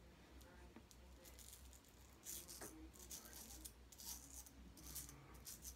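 Faint short rasping scrapes of a George Butler Sheffield straight razor cutting stubble on the chin and under the jaw, a run of quick strokes from about two seconds in.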